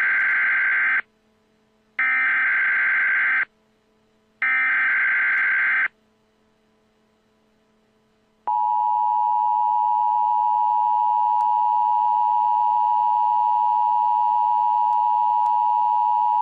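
Emergency Alert System tones: three short bursts of buzzing digital header data, each about a second and a half long with about a second between them, then after a short pause the steady two-tone attention signal, a harsh held chord of two close pitches, begins about eight seconds in.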